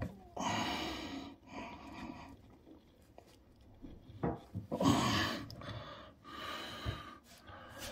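A man breathing hard in a series of gasps and heavy breaths as he strains to tighten a bath waste pipe fitting by hand, with a couple of small knocks from the pipework.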